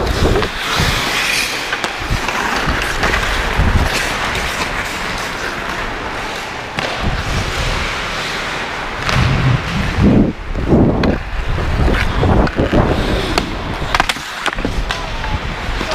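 Ice hockey skates scraping and carving across rink ice, with several sharp clacks of stick on puck in the second half.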